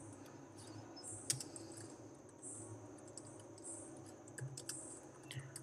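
Faint typing on a computer keyboard: irregular key clicks over a low, steady background hum.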